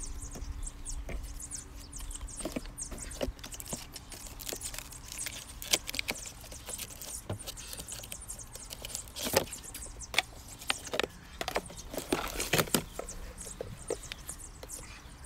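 Unpacking and handling sounds: cardboard packing and plastic bags rustling, and the hard plastic parts of an electric garden shredder clicking and knocking against its plastic collection bin as they are lifted out. Scattered light clicks throughout, with a few sharper knocks about halfway through and near the end.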